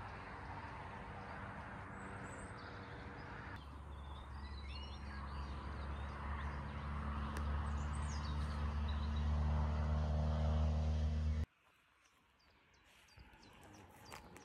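Outdoor ambience with a few bird chirps, then a steady low engine hum that grows louder as a vehicle approaches and cuts off abruptly about two-thirds of the way in. Near the end, footsteps in sandals crunch on gravel.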